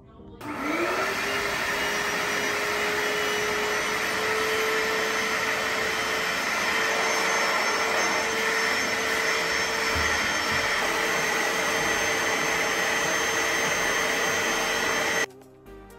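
Portable carpet-and-upholstery spot cleaner starting up about half a second in, its motor whine winding up and then running steadily as its hose nozzle is worked over fabric chair seats. It cuts off abruptly near the end.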